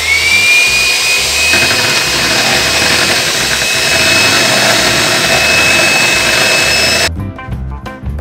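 Electric hand mixer running at full speed, its beaters whipping egg whites in a glass bowl toward stiff peaks, with a steady high motor whine that levels off in the first second. The mixer cuts off suddenly about seven seconds in, leaving background music with a beat.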